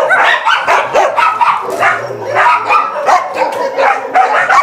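Dog barking and yipping, many short calls in quick succession.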